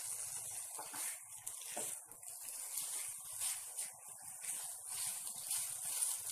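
Pancit rice noodles and vegetables sizzling in a hot wok, with repeated scraping strokes as they are tossed and stirred with a wooden spatula.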